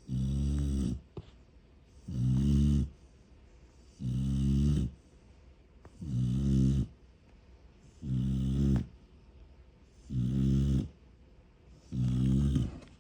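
Snoring, so loud: a deep rumbling snore about every two seconds, each lasting about a second, seven in a row with quiet breaths between.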